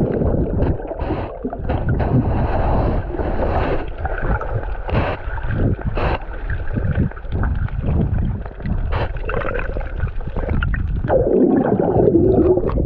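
Seawater splashing and gurgling close to the microphone while swimming, with wind buffeting the microphone. A muffled voice comes in near the end.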